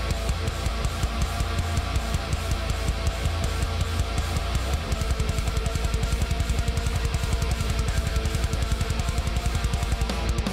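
Background rock music with guitar and drums; the drumming turns to a fast, steady beat about halfway through.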